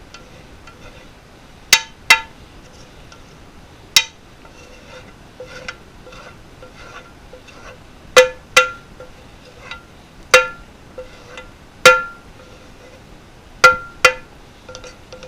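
A spoon knocking and clinking against the rim of a dish while the last of the sauce is spooned out. There are about nine sharp knocks, several in quick pairs, each with a short bell-like ring.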